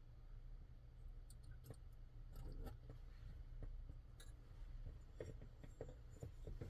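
Scattered light clicks and taps of small folding-knife parts being handled and fitted together, over a low steady hum.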